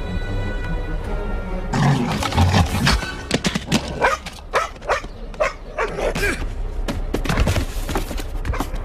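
Cartoon soundtrack: music holding one note, then from about two seconds in busy music mixed with thumps and animal cries.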